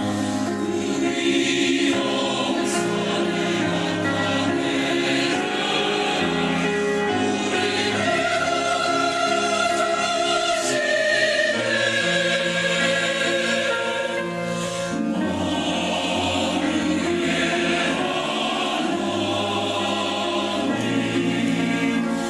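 A church choir singing a sacred anthem in held, sustained chords.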